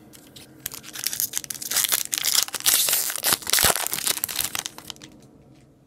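A foil hockey-card pack being torn open and crinkled by hand: a crackling rustle that starts about a second in, is loudest in the middle and fades near the end.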